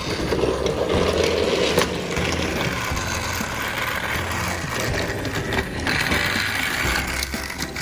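Battery-powered toy Thomas engine running on plastic track: a small electric motor and gearbox whirring, with the wheels and plastic body clicking and rattling.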